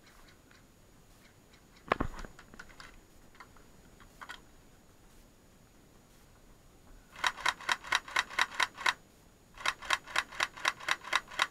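Airsoft rifle fired close by in two strings of rapid shots, about seven a second, in the second half. A single sharp knock about two seconds in.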